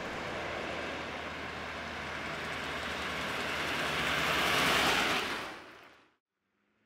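Road traffic noise: a passing vehicle that swells slowly louder, peaks about five seconds in, then fades out to silence.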